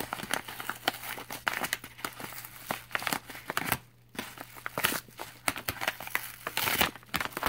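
Kraft paper envelope crinkling and crackling as hands work it open, in a dense run of rustles and small crackles. There is a brief pause about four seconds in and a louder burst of crackling near the end.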